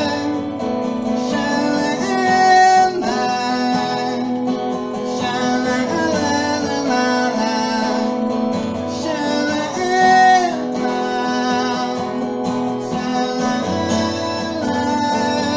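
Music: strummed acoustic guitar with a voice singing long, wordless notes over it, swelling louder twice.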